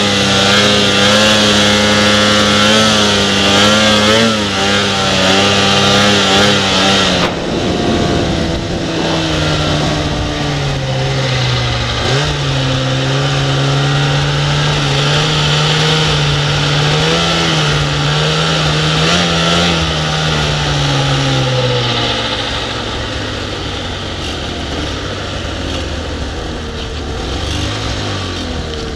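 Snowmobile engine running at steady high revs, heard from on board. After a cut about seven seconds in, a snowmobile is heard from farther off, its engine pitch falling and rising as it carves turns through deep snow, then fading away.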